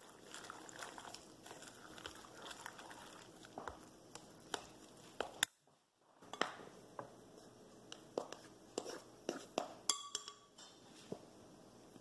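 Chopsticks stirring a thick, lumpy batter of rice flour and shredded turnip in a stainless steel pot: faint, irregular wet squelches and light clicks against the pot. The stirring stops briefly about halfway through.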